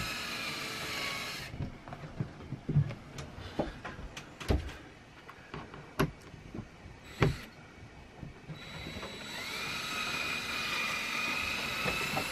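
Cordless power drill whirring as it drives screws to refix a loose cabin ceiling panel. It stops about a second and a half in, several sharp clicks and knocks follow, then the drill runs again from about nine seconds in, winding up briefly and then holding a steady whine.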